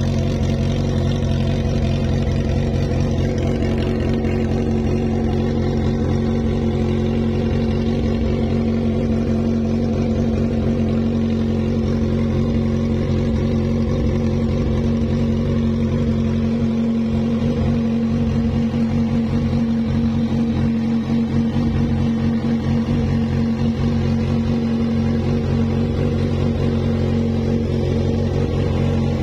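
Kawasaki Z1000's 1043 cc inline-four idling steadily through an Akrapovic full exhaust system with megaphone muffler.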